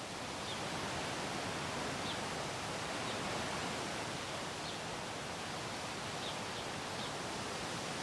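Steady outdoor nature ambience: an even hiss like wind through leaves, with faint short high chirps a handful of times.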